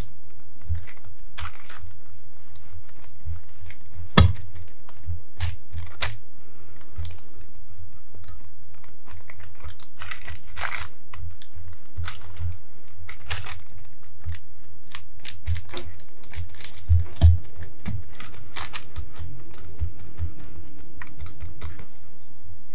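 Fingers pressing and patting a sheet of dough down onto parchment paper: scattered soft taps and paper rustles, with a few sharper taps, over a steady low hum.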